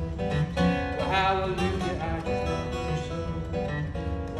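Steel-string acoustic guitar played solo, strummed and picked in an instrumental passage.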